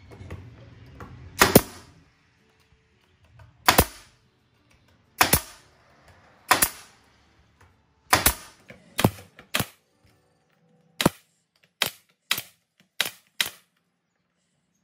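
Porter-Cable pneumatic nail gun firing about a dozen times, driving nails through cross pieces into wooden boards. The shots are sharp single cracks, a second or two apart at first, then quicker, some under half a second apart.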